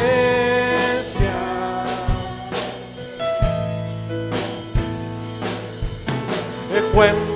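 Live worship music in Spanish: a singer holds the word "presencia" for about the first second and a half, then the band with drum kit plays on without voice until the singing comes back near the end.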